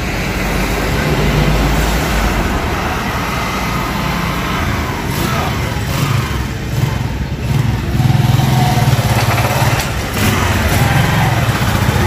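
Small motorcycle's engine running as it rides along, its pitch stepping up and down with the throttle.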